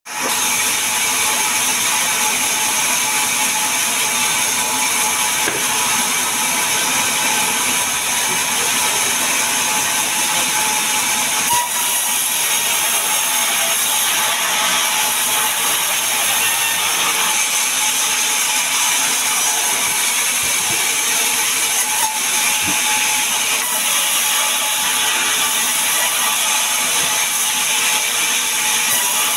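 Sawmill band saw running steadily and cutting lengthwise through a sengon log, a loud, even hiss of blade through wood.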